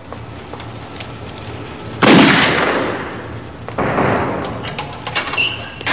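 Two loud gunshots, about two seconds in and again a second and a half later, each trailing off in a long echoing decay. Faint clicks and knocks come before them.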